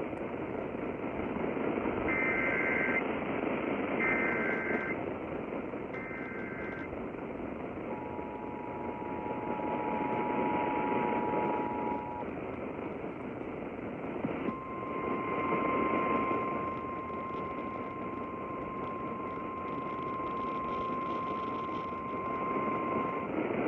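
Emergency Alert System activation heard over AM radio static. Three short bursts of warbling SAME header data tones come first. The two-tone attention signal follows for about four seconds. After a short gap comes a single steady alert tone lasting about eight seconds, typical of the NWS weather alert tone. Together they announce a Severe Thunderstorm Warning.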